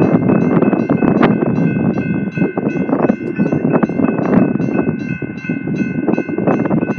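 A freight train rolling past with a steady rumble of wheels on rail, while a railroad grade-crossing warning bell rings over it at about three strikes a second.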